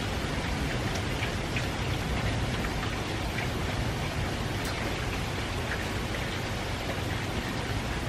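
Light, steady rain from a typhoon passing far offshore: an even hiss with scattered individual drops ticking.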